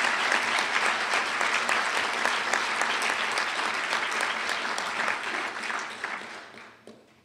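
Audience applauding, the clapping dying away over the last couple of seconds.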